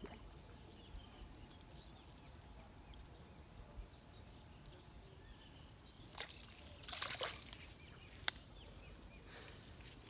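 Faint outdoor background, then a short burst of water splashing about seven seconds in as a hooked fish is pulled out of a weedy pond on a bamboo pole, followed by one sharp tick.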